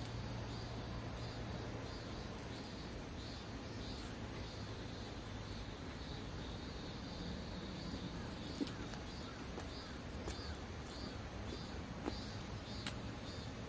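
Outdoor ambience with insects chirping in a steady pulsing rhythm, about two high-pitched pulses a second, over an even background rush. A few faint clicks come near the end.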